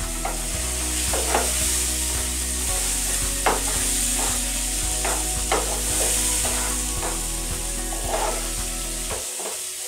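Coarse green pigeon pea paste frying in oil in a nonstick pan, sizzling steadily, while a wooden spatula stirs and scrapes through it in repeated short strokes.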